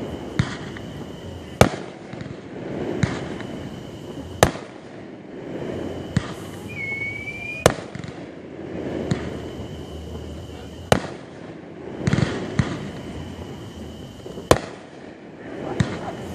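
Aerial fireworks shells bursting: about ten sharp bangs at irregular intervals, from under a second to about three seconds apart.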